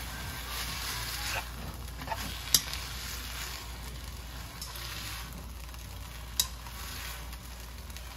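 Instant spicy jjajang noodles in their sauce sizzling in a nonstick wok as they are stirred and tossed with metal tongs, a steady frying hiss. Two sharp clicks of the tongs ring out, a loud one about two and a half seconds in and another a little past six seconds.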